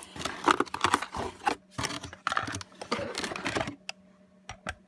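Packaging crackling and rustling as the machine is worked out of its box, a dense run of crisp clicks and crinkles that stops sharply about three and a half seconds in, followed by a few single clicks.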